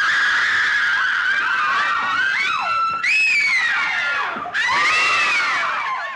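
Several high-pitched voices screaming in fright at once, overlapping. Fresh screams break in about three seconds in and again about a second and a half later.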